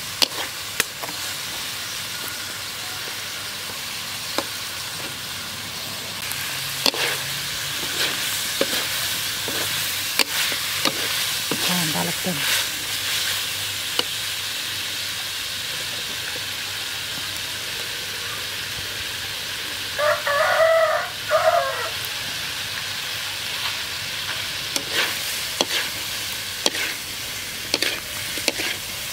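Bell peppers, carrots and chicken gizzards sizzling in a wok as a metal spatula scrapes and clicks against the pan. A rooster crows once about twenty seconds in.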